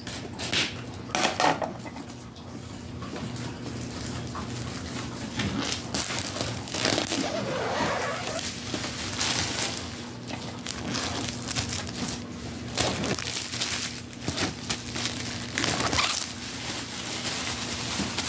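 Plastic shrink wrap crinkling and rustling irregularly as it is cut with scissors and pulled off a box.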